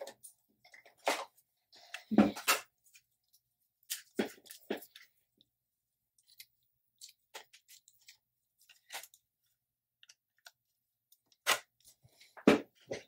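Handling noises on a repair bench: scattered light clicks and taps with a few short, louder knocks, the loudest about two seconds in and another near the end.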